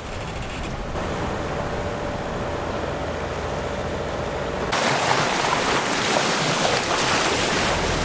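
Sea rushing along a sailboat's hull with wind, over a steady low drone from the boat's engine as it motors in light conditions. About five seconds in it switches abruptly to a louder, brighter rushing hiss of wind and water.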